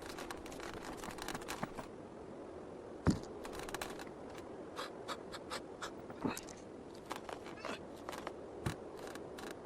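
Cartoon sound effects: scattered light clicks and taps, with a soft thump about three seconds in and a couple more later.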